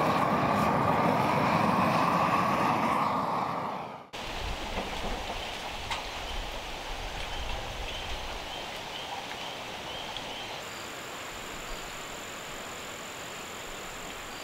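A propane torch burning with a loud, steady rush as it chars a timber beam, cutting off suddenly about four seconds in. Then quiet outdoor ambience: a faint low rumble, a few soft high chirps, and a thin steady high tone from about ten seconds on.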